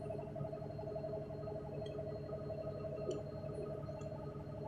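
NefAZ 5299 city bus engine idling with a steady, even hum, heard from inside the cabin while the bus stands still, with a few faint ticks.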